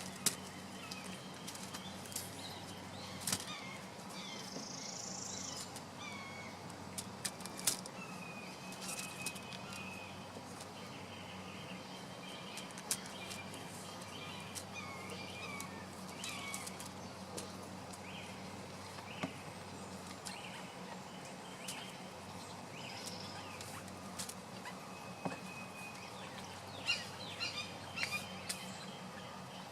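Small birds chirping on and off, with scattered sharp clicks, a cluster of them near the end, over a steady low hum.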